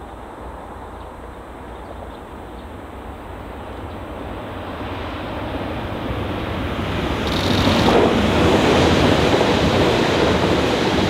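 Passenger train approaching, its rushing rumble growing steadily louder and becoming loud about eight seconds in as it passes close by.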